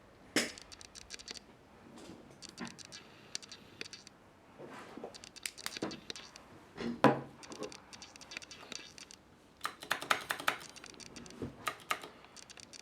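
Irregular scraping, clicking and knocking of objects being handled, with a sharp knock about seven seconds in and a quick run of clicks about ten seconds in.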